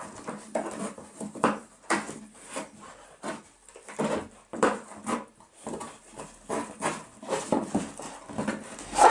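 A dog pawing and nosing at a large cardboard box to snatch a treat poking through its holes: irregular scuffs and knocks on the cardboard, about two a second.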